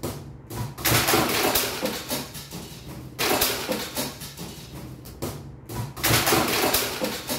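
A gold-foil-wrapped hoop tumbling down stone stairs, a run of thumps and rattling clatter, in three similar bursts.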